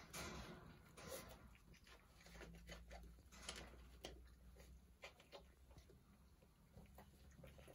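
Near silence: faint scattered rustles and clicks of Doberman puppies stirring in a pile on their bedding, over a low steady room hum.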